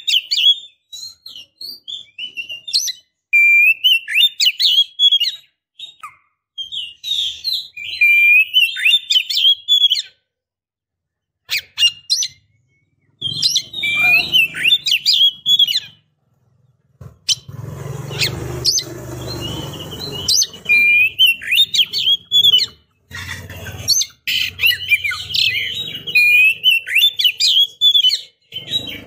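Female Oriental magpie-robin (kacer) calling in bursts of quick chirps and short whistled phrases, with brief pauses between them. These are the calls of a female in breeding condition, used as a lure to draw an answer from males. A few seconds past the middle, a rustling, rumbling noise runs under the calls for about three seconds.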